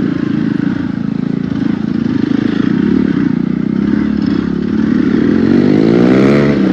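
Motorcycle engine running at low speed in thick slush, rising in pitch about five seconds in as the throttle is opened, then easing off near the end.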